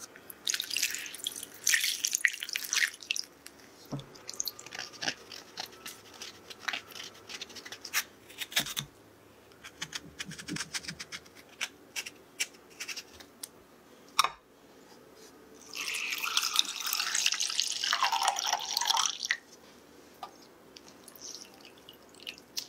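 Kitchen preparation sounds. First peaches are scrubbed with salt in a glass bowl, a rough hiss. Then a handheld peeler shaves off the skin in a run of short scraping strokes, ending in a sharp knock. Near the end water is poured into a saucepan for about three seconds and stops suddenly.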